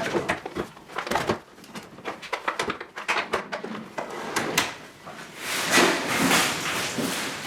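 Handling noise from workshop work: a quick series of clicks and knocks, then a denser, rough scraping-like noise from about five and a half seconds in.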